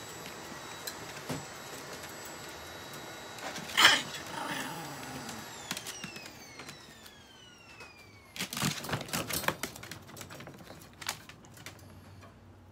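Chihuahuas scrabbling and jumping against a metal wire playpen: claws clicking and the mesh rattling, with one sharp knock about four seconds in and a burst of rapid clattering past the middle.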